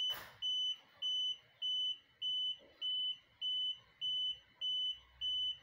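Satellite finder meter beeping steadily, a short high beep repeating at an even pace of about five every three seconds. The beeping signals that the meter has locked onto the satellite's signal while the dish is being aimed.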